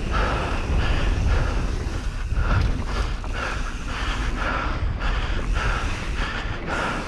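Wind buffeting the camera's microphone while a mountain bike rolls fast down a dirt singletrack, its tyres rumbling and rattling over the trail surface in uneven bursts.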